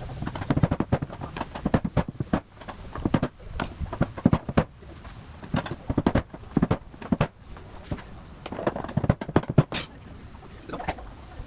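Mallet tapping a pry bar against a fuel pump lock ring to spin it into the tank's grooves: a long run of sharp, irregular knocks, often several in quick succession.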